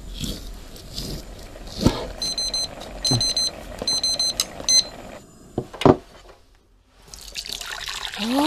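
A digital kitchen timer beeping at zero in about four quick bursts of short, high beeps, the noodles' boiling time up. Sharp knocks come before and after the beeping, the loudest near 6 s, and near the end hot water is poured into a soup bowl.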